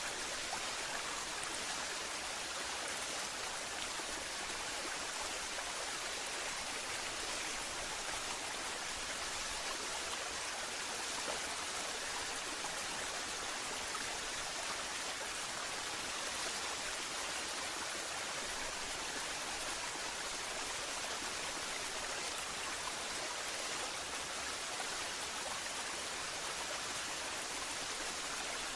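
Waterfall: water pouring and splashing in a steady, unbroken rushing hiss.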